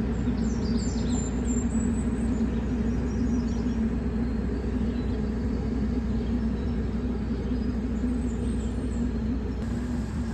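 A steady, unchanging motor drone with a constant low hum, and a few faint bird chirps about half a second to a second and a half in and again around eight seconds.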